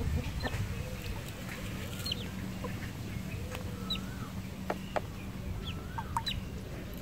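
Domestic ducklings peeping in scattered short calls, with a few sharp clicks and a steady low hum underneath.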